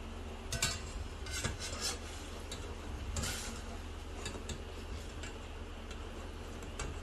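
A utensil scraping and clicking against a pot and bowl as cooked fish slices are scooped out of the broth, in a few short scrapes and taps over a steady low hum.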